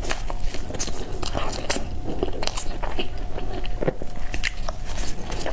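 A person biting and chewing peanut and black sesame bread close to the microphone, with many short, sharp wet mouth clicks.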